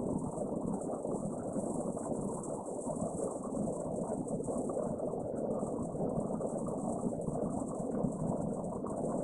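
Mountain stream rushing over rocks as a steady wash of water noise, with a continuous high-pitched chirring of insects over it.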